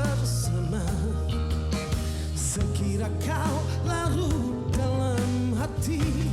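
A band playing a pop song with a singer's voice over bass, drums and keyboards or guitar.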